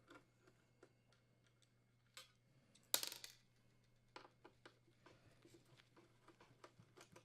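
Faint scattered clicks of screws being unthreaded from an oven door, with a short clatter about three seconds in.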